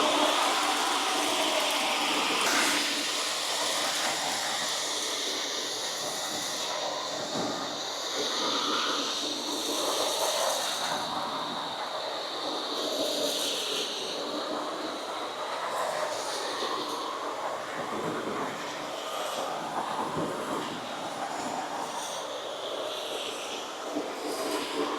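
Shark NV360 Navigator Lift-Away upright vacuum cleaner running on a concrete floor: a steady motor and airflow hiss that swells and eases a little as it is pushed about.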